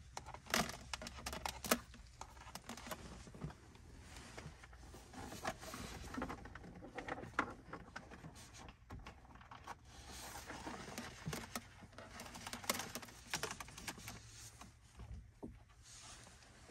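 Irregular light clicks and rustling as hands feed a cable through the opened dashboard and under the trim, with brief handling knocks on plastic.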